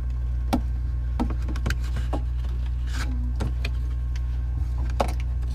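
A steady low hum with a few scattered light clicks and taps, as of hands handling parts near the ice maker's fill tube.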